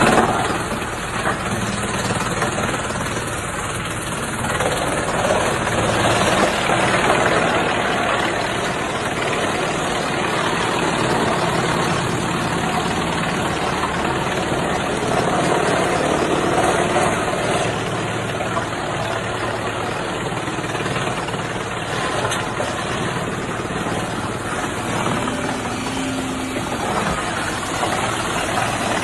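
Large industrial wood chipper running steadily, a continuous mechanical noise that swells a little in level now and then.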